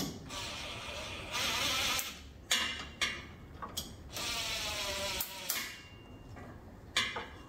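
Cordless DeWalt driver running in several short bursts, with clicks between them, driving in and snugging up bolts.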